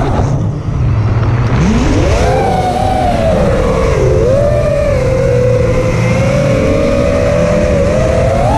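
FPV quadcopter's brushless motors and propellers whining, the pitch following the throttle: the whine drops away about half a second in, climbs back up a second or so later, holds fairly steady with small wobbles, and rises again near the end. A rough rush of wind and prop wash runs underneath.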